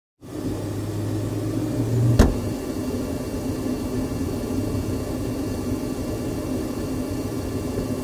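Steady whir of a laser engraver's fans and air-assist pump running, the laser not yet firing. A low hum in the first two seconds ends with one sharp knock.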